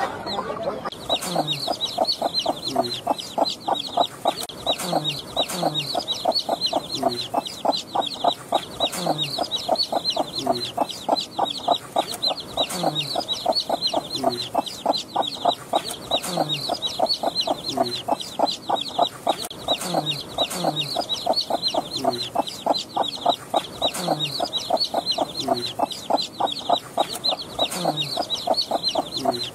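Desi hen clucking low to her chicks about once a second, with chicks peeping rapidly and without a break.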